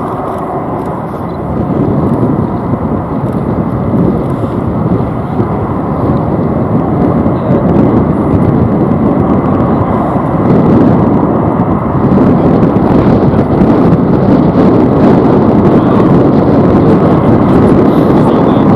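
Loud steady rumble of jet aircraft engines, growing a little louder about two seconds in and again about ten seconds in.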